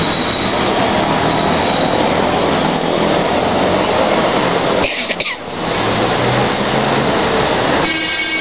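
Road traffic from passing vehicles, a steady loud rush that dips briefly about five seconds in.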